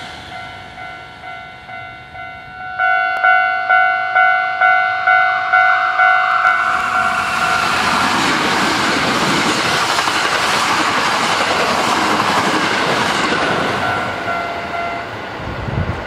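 Japanese level-crossing warning bell ringing its repeated 'kan-kan' about twice a second, loud from about three seconds in. A Hankyu 9300 series electric train then runs past at speed, and its rushing rumble covers the bell for several seconds.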